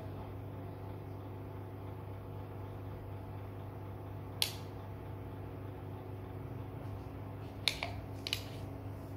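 Steady low mechanical hum of a room fan or appliance, with three short light clicks: one about halfway through and two near the end, small hard taps while a brush works at a ceramic cup and plastic paint palette.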